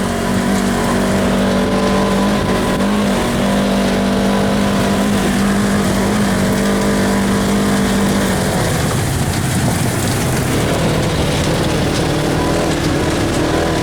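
Polaris RZR side-by-side's engine running steadily under way, over a constant rushing noise; about eight seconds in its pitch drops as the machine eases off.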